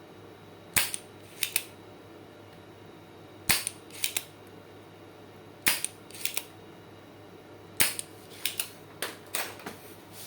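Spring-loaded desoldering pump firing four times, a sharp snap about every two seconds, each followed by a couple of lighter clicks. It is sucking solder from the pins of the UPS's faulty 12 V relay so the relay can be pulled from the circuit board.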